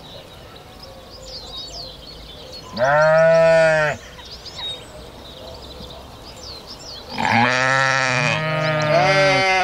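Sheep bleating: one call about three seconds in, then a longer bleat from about seven seconds, with a second sheep's bleat overlapping it near the end.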